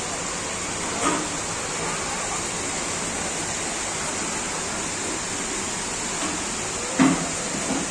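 Steady rushing noise of fast-flowing floodwater, with two brief louder sounds breaking through, about a second in and near the end.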